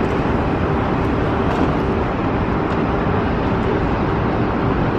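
Steady rumble of an elevated people-mover tram travelling along its guideway, heard from inside the car, with a faint steady hum.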